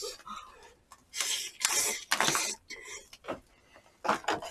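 Jjamppong noodles slurped in two long noisy draws starting about a second in, with light clinks of dishes and utensils.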